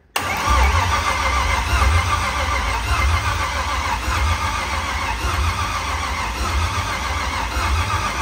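GM LS V8 engine in a Nissan S14 cranking on its starter for about eight seconds without catching, then spinning down as the starter button is released. This is a first-start attempt, and fuel pressure at the injectors is still in doubt.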